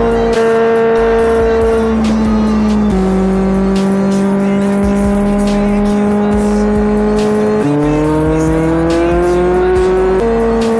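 Background music: an instrumental stretch of an R&B-style pop song, with held synth notes that change pitch every few seconds, one sliding upward, over a light hi-hat beat.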